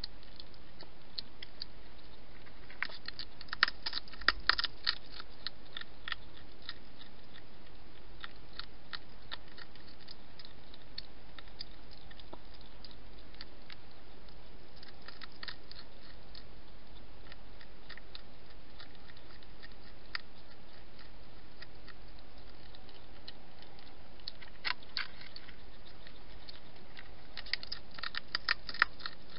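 Wild European hedgehog eating from a dish, chewing and crunching its food in irregular runs of sharp clicks. The chewing is heaviest about four seconds in and again near the end, over a steady hiss.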